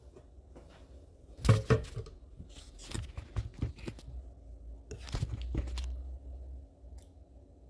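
Handling noise: a handful of separate knocks and scrapes as a plastic drink bottle is moved about close to the phone, with the loudest knock about one and a half seconds in.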